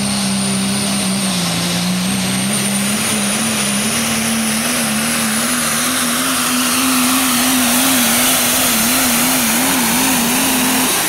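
Super stock diesel pulling truck at full throttle, dragging the sled down the track. The engine note holds steady and then wavers toward the end, over a high turbo whistle that slowly rises.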